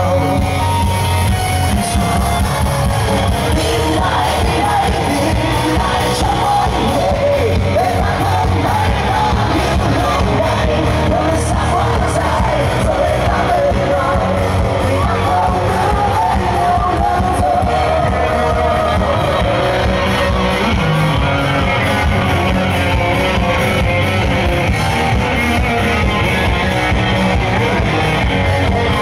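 Rock band playing live: a singer's voice over electric guitar and drums, loud and continuous.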